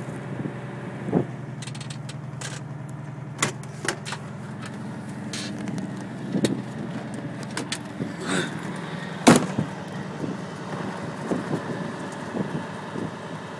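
Vehicle engine idling with a steady low hum, with scattered clicks and knocks and one sharp, loud knock about nine seconds in.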